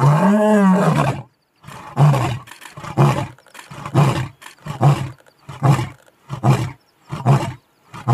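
A male lion roaring: one long full roar that rises and then falls in pitch, followed by a series of about seven shorter roars a little under a second apart, each briefer than the last.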